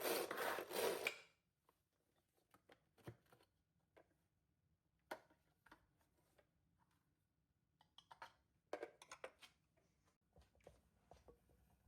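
Rhythmic rubbing that stops about a second in, followed by faint scattered light clicks and taps.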